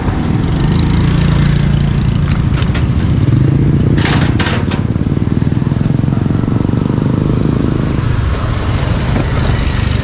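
Street traffic: a motor vehicle's engine running close by with a steady low hum, easing off near the end, with a few sharp clacks about four seconds in.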